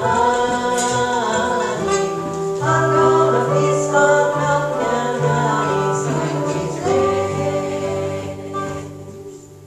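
A man and a woman singing a slow worship song into microphones, accompanied by a small strummed acoustic stringed instrument, holding long notes; the song ends and its last note fades out near the end.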